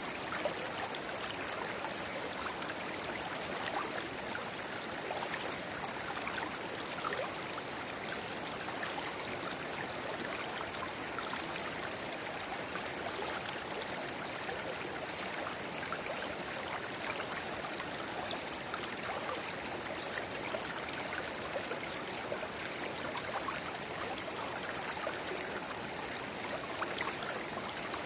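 Small river babbling steadily, with a narrow spring-fed channel pouring into it.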